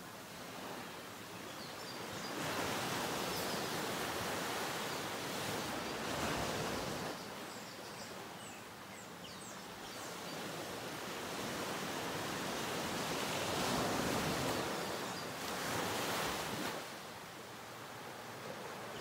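Ocean surf washing onto a sandy beach, a hiss of waves that swells and fades in long, slow surges.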